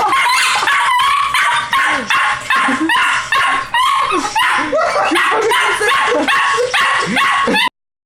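Pug-mix dog barking and yapping nonstop in rapid, angry bursts, about three a second, until it stops suddenly near the end.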